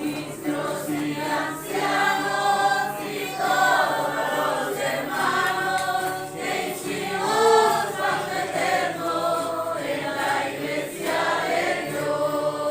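A church congregation singing a hymn together, many voices at once.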